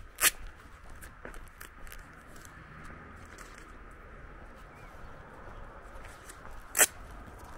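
Footsteps crunching on a gravel path, with two sharp, loud clicks: one just after the start and one near the end.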